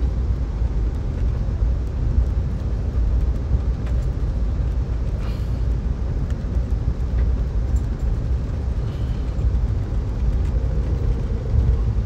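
Steady low rumble of an Amtrak California Zephyr passenger train running along the track, heard inside the passenger car, with a few faint clicks.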